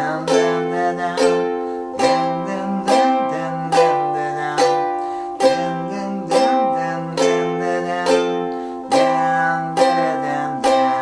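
Ukulele strumming the intro chords C, F/C and G7 in a slow, even rhythm, the last C chord left to ring out near the end.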